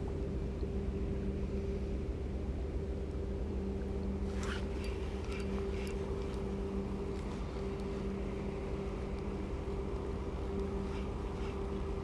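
Steady low mechanical drone with a constant hum over a deep rumble, and a few light clicks about four and a half seconds in.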